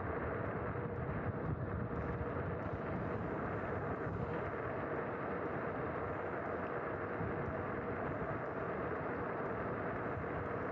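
Kugoo G Booster dual-motor electric scooter ridden flat out at about 50 km/h: a steady rush of wind and tyre noise on tarmac, with a faint steady hum underneath.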